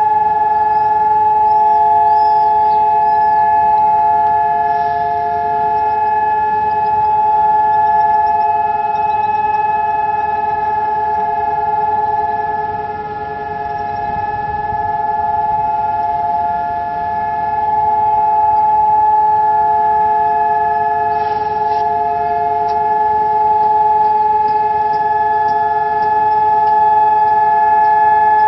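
Civil defense sirens sounding one steady, unbroken tone with no rise or fall: the two-minute memorial siren sounded across Israel on Holocaust Remembrance Day. The loudness dips a little about midway.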